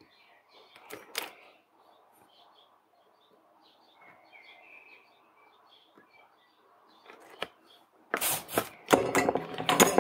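Quiet hand-soldering work with a soft click about a second in and faint short high chirps, then loud knocks and rustling near the end as the circuit board and tools are handled.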